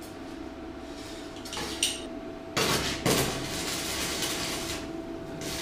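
Electric arc welding tacking two steel pipe sections together: a light metallic clink, then the arc strikes a little under halfway in and crackles on steadily, with a steady faint hum underneath.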